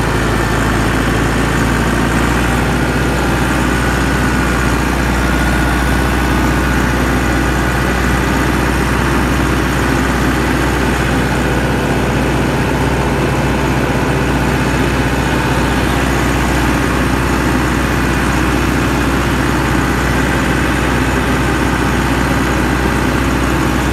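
Farm tractor's diesel engine running steadily, heard loud from the driver's seat.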